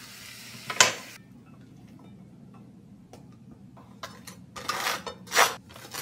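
Spinach and eggs sizzling in a frying pan, with a sharp clink about a second in before the sizzle cuts off. Near the end, a table knife scraping in several strokes as butter is spread on toast.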